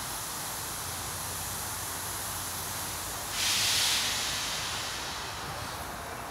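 A steam tank locomotive venting steam: a sudden rush of hiss about halfway through that fades over a second or so, over a steady background hiss.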